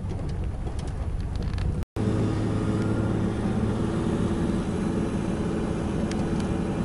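Car cabin noise while driving: a steady hum of engine and tyres on an unpaved road, broken by a brief dropout about two seconds in.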